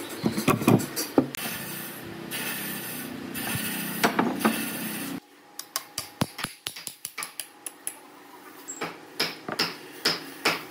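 Rusty iron bolt being worked out of old boat timber with locking pliers: metal grating and clicking over a steady low hum. About five seconds in this cuts off, followed by a series of sharp metallic knocks, several a second at first and then further apart, as bolts are driven out of a beam.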